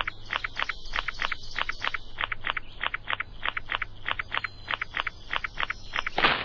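Night insects chirping in a quick regular rhythm, about four short chirps a second, over a low steady hum. Near the end, a brief loud burst of noise, then the sound cuts off abruptly.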